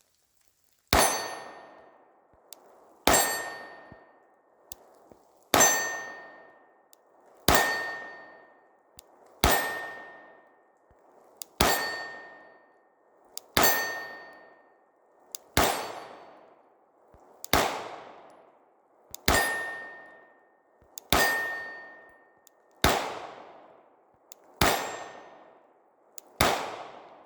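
Glock 19X pistol fired at a slow, even pace: fourteen sharp shots about two seconds apart, each followed by a metallic ring that dies away over a second or so.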